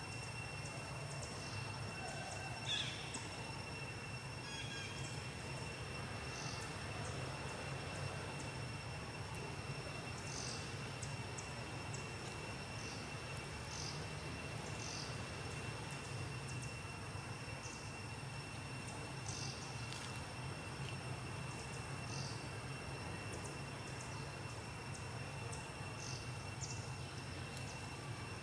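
Insects, crickets or the like, droning steadily on a high even pitch, with short high chirps every second or few and a low steady hum beneath.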